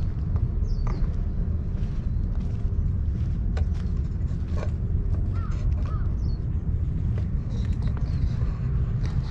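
Outdoor park ambience: a steady low rumble, with a few faint high bird chirps and two short calls about five seconds in.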